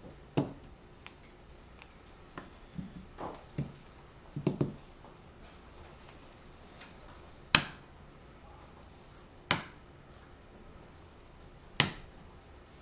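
Tegu magnetic wooden building blocks clacking together as their embedded magnets snap them into place, and knocking on the tabletop as they are set down. Small clicks come in the first few seconds, then sharper single clacks about halfway through, again a couple of seconds later, and once more near the end.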